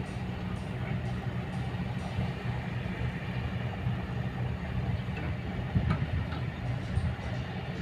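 Kobelco hydraulic excavator's diesel engine running steadily at a low drone, with a single knock about six seconds in.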